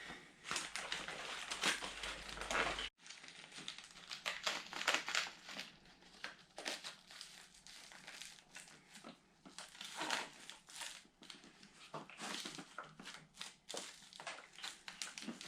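Irregular rustling and scuffing of hands working a part through a tight spot on a dirt bike's handlebar, with a brief dropout about three seconds in.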